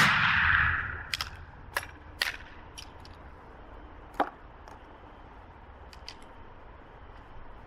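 The fading blast of a Werndl rifle's black-powder 11.15x58R shot, fired a moment before, dies away over the first second. Then a string of sharp metallic clicks and clacks, about six between one and four and a half seconds in and a few faint ones later, as the rifle's rotating breechblock is worked and a fresh cartridge is loaded.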